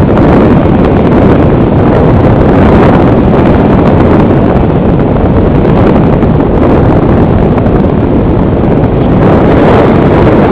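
Loud, steady wind rush on the onboard camera microphone of an FPV model aircraft in flight.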